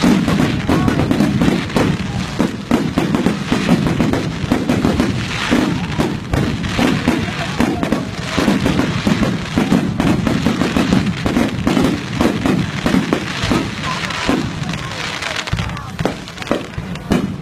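A fireworks display: aerial shells bursting overhead in a loud, dense, continuous run of bangs and crackles.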